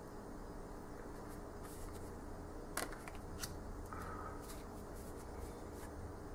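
Tarot cards being handled and swapped in the hands: a few faint clicks and card slides over a low steady hum.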